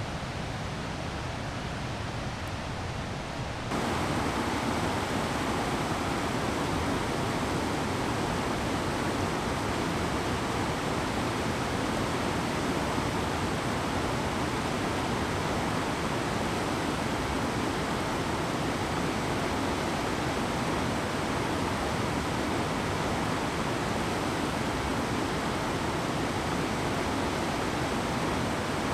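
Steady rushing of river water, an even noise with no separate events, which gets louder and fuller about four seconds in and then holds steady.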